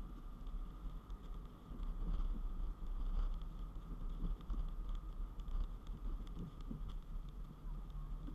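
Steady low road and engine rumble inside a car moving at road speed, picked up by the action camera's built-in microphone. Faint scattered ticks run through it.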